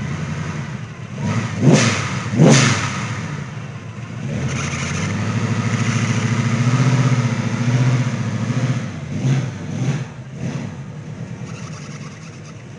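Car engine revving hard in a burnout: two sharp blips of the throttle about two seconds in, then held at high revs for several seconds, with a few more blips before it eases off near the end.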